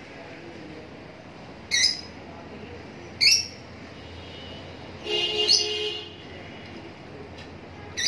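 Lutino lovebirds calling: two short, shrill squawks about two and three seconds in, then a longer call lasting about a second after five seconds.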